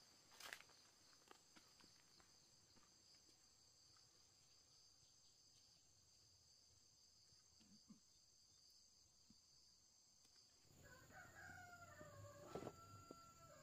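Mostly near silence with a few faint clicks and a steady high whine. About eleven seconds in, a rooster crows: a wavering call that ends on a long held note.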